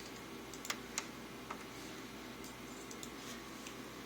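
A few light plastic clicks, three within the first second and a half, as the repaired power button of an Acer H233H monitor is pressed to test it, over a faint steady hum.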